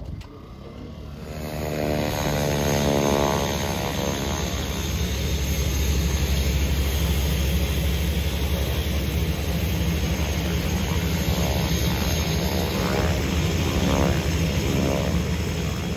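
Cessna 208B Grand Caravan's single Pratt & Whitney PT6A turboprop engine and propeller, heard from the airstrip side as the plane comes in to land. The propeller drone swells about a second in, stays loud and steady, then begins to fade near the end.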